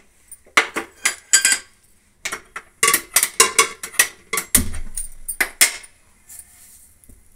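Stainless steel kitchen containers and lids clinking and clattering as they are picked up and handled, with a dull thump about four and a half seconds in.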